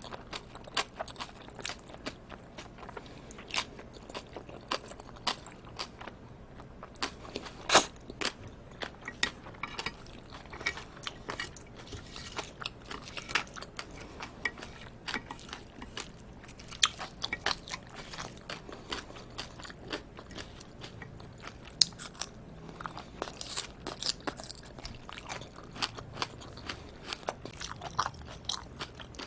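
Close-miked eating: a person chewing a mouthful of live octopus and cold bibim noodles, a steady run of short wet clicks and crunches with one louder click about eight seconds in.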